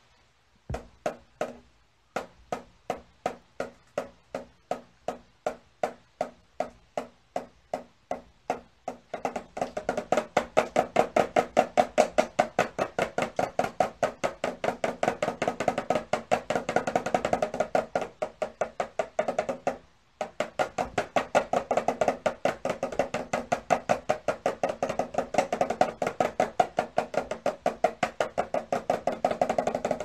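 Small toy snare drum tapped with a stick in a steady beat, about two strokes a second at first, then speeding up to about five a second and getting louder after about nine seconds, with a brief pause about twenty seconds in.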